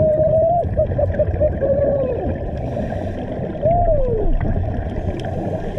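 Muffled underwater rumble and gurgling picked up by a diving camera, with a few short tones that slide downward, the longest about two thirds of the way through.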